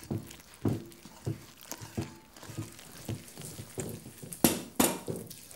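Wooden spoon stirring flour and wet ingredients into a batter in a ceramic mixing bowl, the spoon knocking against the bowl about every half second, with two louder knocks near the end.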